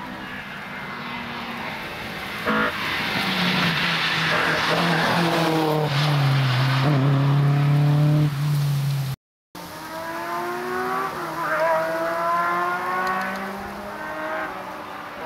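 Historic rally cars at full throttle on a special stage. One car approaches with a short crack about two and a half seconds in and passes close, loudest about eight seconds in. After a sudden break, a second car is heard revving hard up and down through gear changes.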